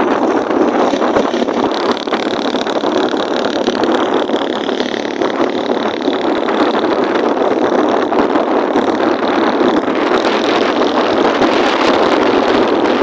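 A motorcycle riding steadily at speed: wind rushing over the microphone mixed with engine and road noise.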